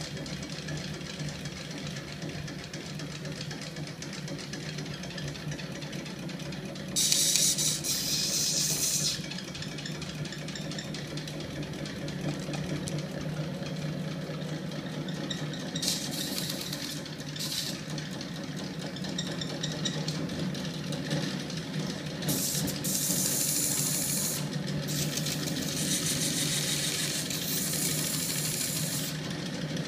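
Homemade magnet-coupled crank engine prototype, driven by a small electric motor, running steadily with a low mechanical hum from its spinning steel flywheel stack. Bursts of high hissing noise come and go over the hum: the loudest about seven seconds in, shorter ones in the middle, and a longer stretch near the end.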